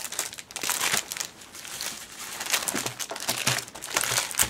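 Clear plastic packaging crinkling in a quick, irregular run of crackles as a chipboard album in its bag is handled.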